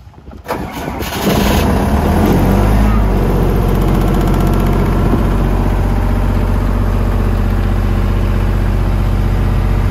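Atlas Copco XAS185 compressor's Deutz diesel engine being key-started after a short preheat. It catches about a second in and settles into a steady run.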